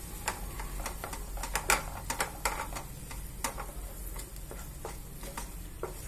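A wooden spatula stirring and scraping mint paste and onion around a nonstick kadai, giving irregular clicks and knocks against the pan, thicker in the first half, over a faint sizzle of frying in oil.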